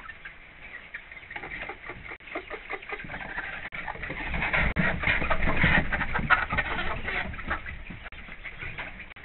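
Chickens in a coop making soft, low clucking calls over a dense patter of rain on the roof. The sound swells louder for a few seconds in the middle.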